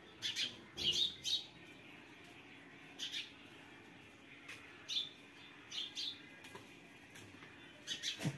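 Small birds chirping: short, sharp chirps, some in quick pairs, scattered every second or so over a faint steady background.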